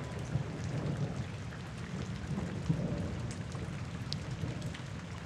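Steady rain with a low, rolling rumble of thunder, scattered drop ticks over an even hiss.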